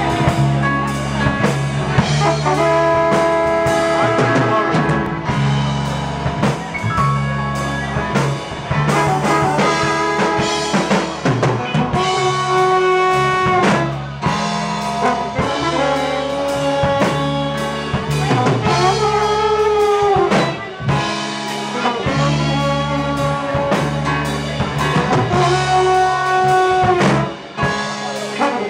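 Live jazz-rock band playing an instrumental: saxophone and trombone carry long held melody notes, some bending in pitch, over electric keyboard, bass and drum kit.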